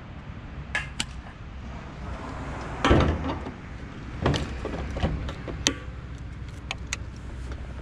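Locking fuel-tank cap of a TVS Apache motorcycle being shut and turned with its key: a clatter near three seconds and several sharp metallic clicks, with the key fob jangling, over a steady low hum.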